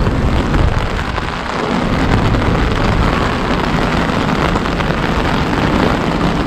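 Heavy rain coming down hard, a steady hiss, with a low rumble underneath.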